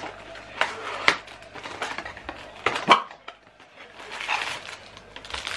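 Gift packets and packaging handled in a box: a handful of short, sharp clicks and knocks in the first three seconds, then a softer rustle a little after halfway.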